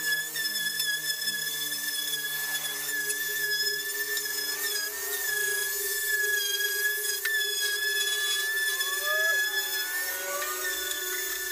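Small handheld electric power tool, sander-type, run against a coffin's painted lid and side, giving a steady high-pitched motor whine.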